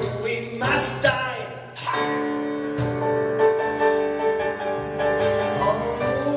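Live cabaret song: a male singer on a microphone with double bass and piano. After about two seconds of short, broken vocal phrases he holds long notes, sliding in pitch near the end, over the plucked bass.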